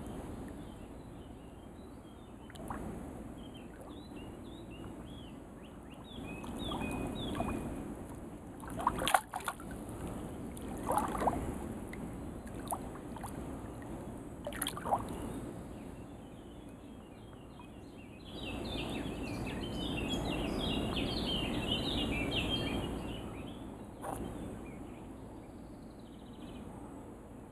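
A hooked carp sloshing and splashing at the water surface, with a few sharp splashes in the middle. Small birds chirp over it, most busily in the second half.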